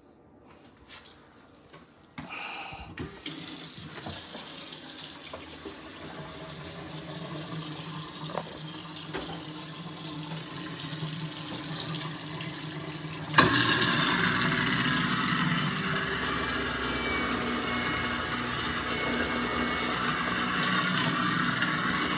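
Water running from a kitchen tap into a sink. About 13 seconds in, a newly installed garbage disposal is switched on with a sudden jump in level, and its motor runs steadily under the water.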